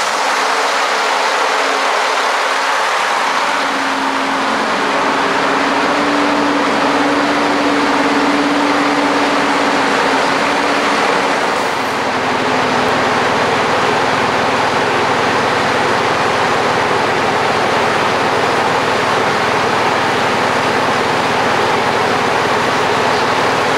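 Train running past on the line: a steady, loud rush of wheel and engine noise, with a held engine tone for several seconds in the first half and a deeper rumble coming in about halfway through.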